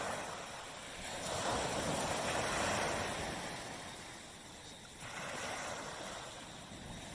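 Small tropical waves breaking on a sandy beach and washing back. Two waves swell and fade, the second breaking sharply about five seconds in.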